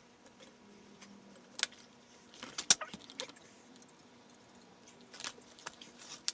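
A few scattered, light metallic clicks and clinks of small metal objects being handled, loudest in a short cluster about halfway through.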